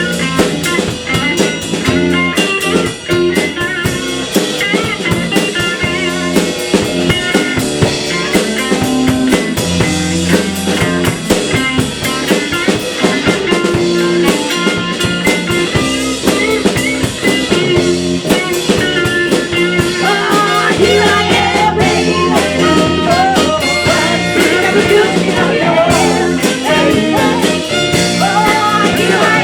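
A live band playing a blues-rock number with guitar and drum kit, loud and continuous, the melodic lines getting busier in the last third.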